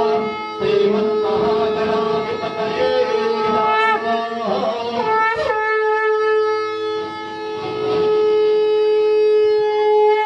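Conch shell (shankh) blown in one long, steady horn-like note; about halfway through the note wavers and bends in pitch, then holds steady again.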